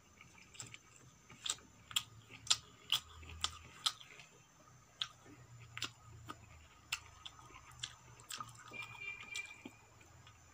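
Close-miked wet chewing of rice and vegetables with irregular sharp mouth clicks and smacks, densest in the first few seconds and sparser later, along with fingers squishing rice on a steel plate.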